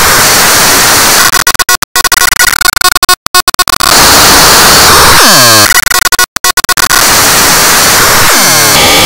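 Loud, harsh distorted noise from a heavily effects-processed cartoon soundtrack: a static-like hiss that cuts out abruptly a few times, with swooping sweeps about five seconds in and again near the end.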